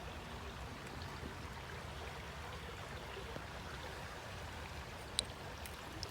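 Creek water flowing and trickling steadily, with one sharp click about five seconds in.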